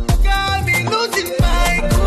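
Background music with a steady beat: drum hits with deep bass under sustained melody lines.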